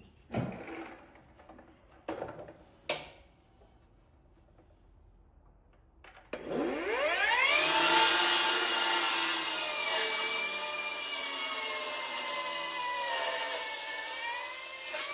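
A few wooden knocks, then about six seconds in an electric power tool spins up and runs steadily on an oak beam for about nine seconds, its pitch sagging a little near the end as it takes load.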